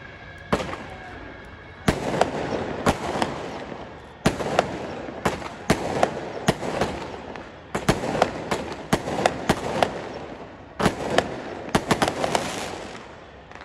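Strings of firecrackers going off in dense crackling runs a few seconds long, with many sharp, louder bangs standing out among them.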